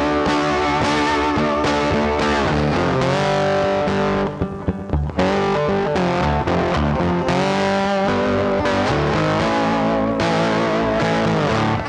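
Background music: distorted electric guitar rock with bass, bending notes over a steady rhythm.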